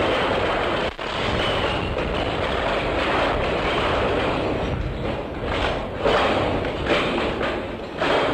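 Dense, continuous clatter of many sprung mousetraps snapping shut in a chain reaction, with balls knocking about among them.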